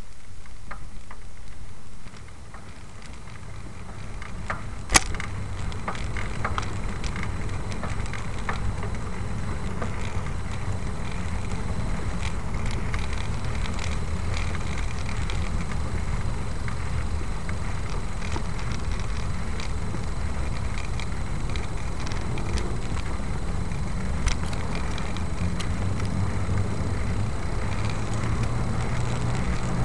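Steady low rumble of wind on the microphone, with scattered small clicks and one sharp click about five seconds in. The rumble drops briefly about two seconds in and builds back up.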